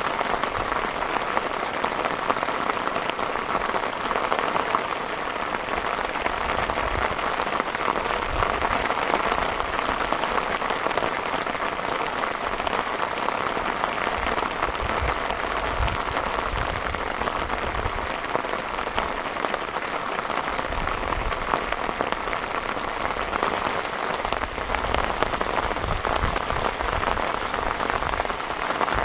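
Heavy rain falling steadily on a surface, a dense even patter of countless drops.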